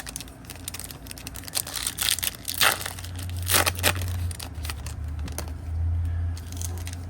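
Plastic wrapper of a basketball trading-card pack crinkling and tearing as it is handled and opened. The two loudest rips come about two and three and a half seconds in, over a steady low hum.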